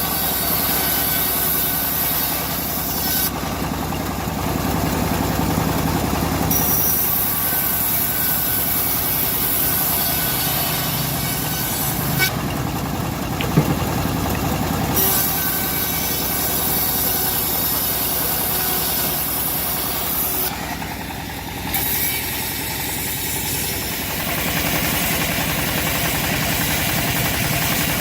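Homemade band sawmill running and sawing teak: a steady engine drone under a high hiss from the blade, the hiss dropping out briefly three times.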